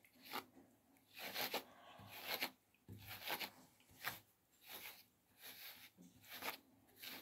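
Cat grooming brush drawn again and again through a cat's damp fur: a dozen or so short, faint, scratchy swishes at an uneven pace.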